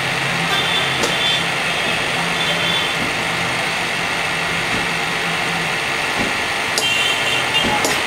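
Electric pump motor running steadily with a constant low hum and a hiss of fan and flow noise. A few light clicks sound over it.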